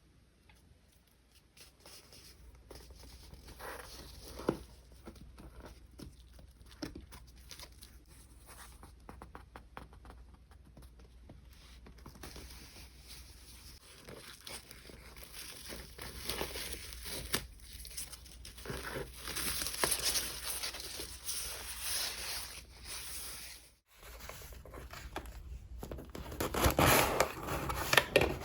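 Paper and plastic packaging being handled, crinkled and torn open by hand: soft rustling and small clicks that grow louder, broken by a moment of silence a few seconds before the end, then loud crinkling.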